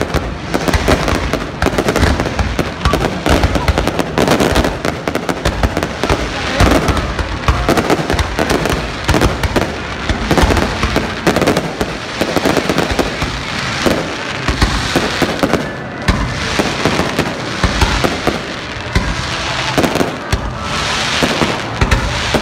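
Aerial fireworks display: a rapid, unbroken barrage of bangs from bursting shells.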